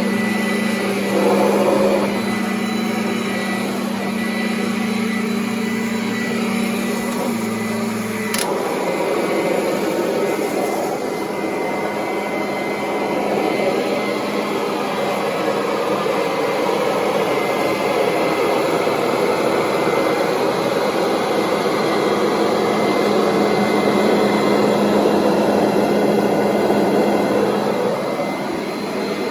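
Kirby upright vacuum cleaner running steadily while vacuuming carpet, a continuous motor hum with a steady tone. A sharp click about eight seconds in, after which the airflow sounds fuller and more rushing. Near the end the pitch rises briefly.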